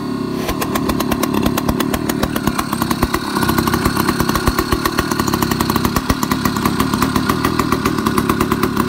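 80cc single-cylinder two-stroke bicycle engine kit running, its exhaust giving a fast, even beat of pops that grows a little louder part way through.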